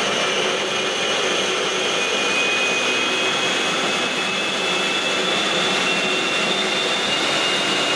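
Food processor motor running steadily with a high whine, puréeing onions, tomatoes, green chilies and ginger with olive oil into a smooth paste.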